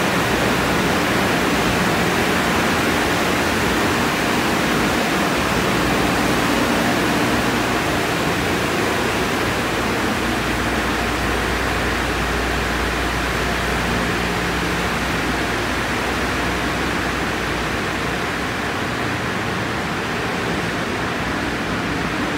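Steady rushing hiss of water spray and running wash equipment inside an automatic tunnel car wash, with a low hum joining for a few seconds mid-way.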